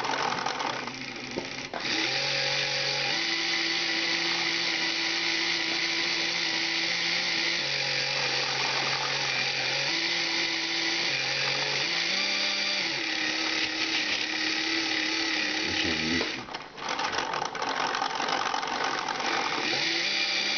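LEGO electric motors and plastic gear trains of a kite-painting machine whirring as they drive the brush arm, the pitch stepping up and down as the motors change speed. The whir briefly drops out about sixteen seconds in, then starts again.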